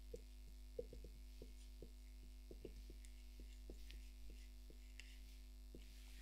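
Near silence: a steady electrical mains hum, crossed by faint, irregular small clicks a few times a second.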